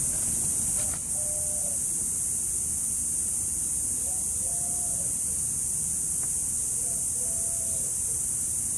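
Steady high-pitched electronic hiss, with a low rumble underneath. A few faint short tones come every few seconds.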